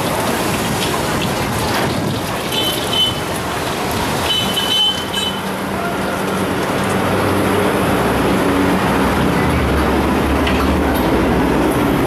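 Busy street-stall sound: a metal spatula clanking and scraping in a wok a few times in the first half, over a steady traffic hum. A car engine runs close by and grows louder over the last few seconds.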